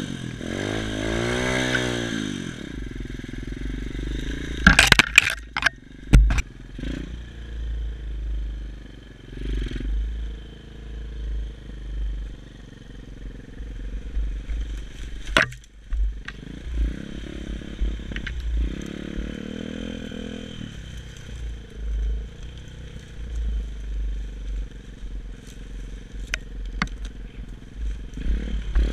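Xmotos XB33 140cc pit bike's single-cylinder four-stroke engine revving up and down over the first couple of seconds, then running at lower revs. Sharp knocks and rattles come from the bike jolting over rough trail, the loudest a cluster of impacts about five seconds in, with a few more knocks later.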